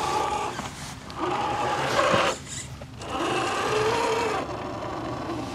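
Electric motor and gear drive of a scale RC crawler whining in three bursts as the throttle is worked on a steep dirt climb. The pitch rises and falls with the throttle, and dips between the pushes.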